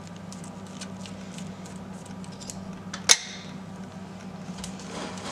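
A utensil scraping leftover muffin batter together inside a pot: light scrapes and ticks against the pot, with one sharp clack about three seconds in.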